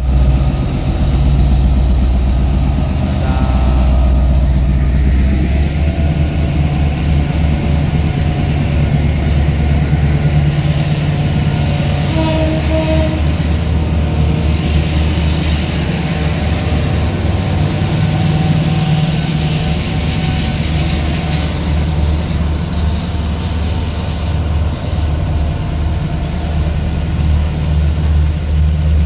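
Container freight train passing close by, headed by two KAI diesel-electric locomotives. The locomotive engines run with a steady deep drone. From a few seconds in, a fast, rhythmic clatter of wheels over the rails joins it as the container wagons roll past.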